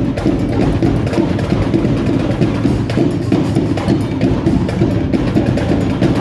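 Marching drumline playing a fast, dense percussion cadence, with bass drums and sharp stick hits.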